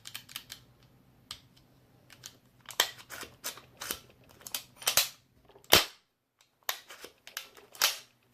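T15 paintball marker being test-fired after a full-auto trigger kit was fitted: a string of sharp pops and clicks, mostly single shots about half a second apart with a few quick doubles.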